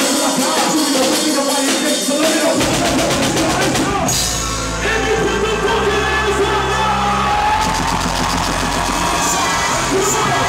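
Live rap concert music over the hall's sound system, with vocals. A fast ticking beat plays with no low end at first; the bass comes in about two and a half seconds in and drops in heavily at about four seconds.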